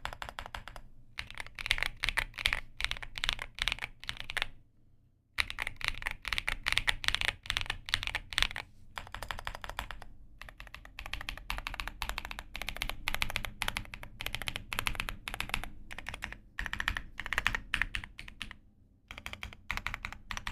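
Fast typing on a computer keyboard: rapid runs of key clicks in bursts, broken by a few short pauses, the longest about five seconds in.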